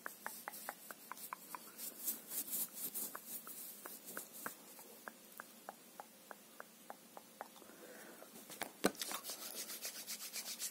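Close-up rubbing and a steady run of light clicks, about three a second, from a pink plastic object handled against the microphone, with a louder knock near the end.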